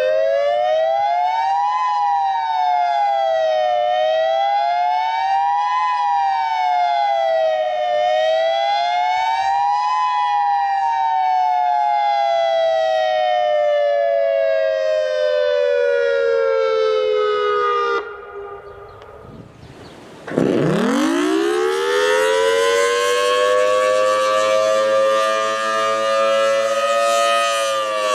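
Outdoor tornado warning sirens. For about 18 s a siren sounds a two-tone chord that rises and falls in pitch about every two seconds, then slides slowly down and cuts off. A couple of seconds later a siren winds up from a low growl to a high steady tone and holds, starting to fall near the end.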